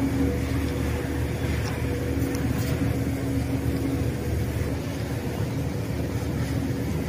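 Steady mechanical hum with a constant low rumble underneath. Faint crowd chatter sits in the background.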